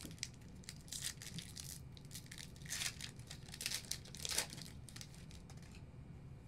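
A trading card pack's foil wrapper being torn open and crinkled: a string of short, irregular rips and rustles, the loudest about three and four and a half seconds in.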